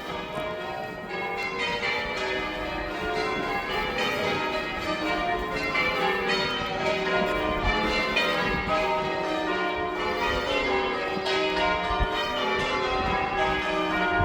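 Chichester Cathedral's bells ringing from the bell tower, many bells struck one after another in an unbroken, overlapping stream of tones that grows a little louder as it goes.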